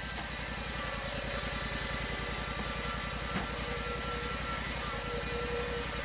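Portable bandsaw sawmill's engine running steadily with the blade turning, an even low pulse under a constant hum.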